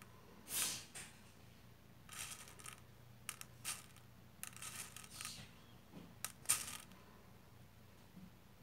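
Faint, scattered clicks and short rustles of size-5 pearl beads being picked up with a needle and slid onto nylon thread, about a dozen small sounds with a sharper click about two thirds in.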